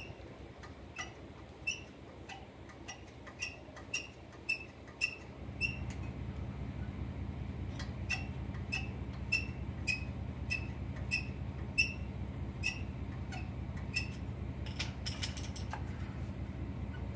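Parking-brake shoe adjuster star wheel clicking notch by notch as a screwdriver levers it round, about two sharp, squeaky clicks a second with a short pause partway through. The drum-in-hat parking brake shoes are being backed off so the rear rotor can come off. A low steady hum starts about five seconds in.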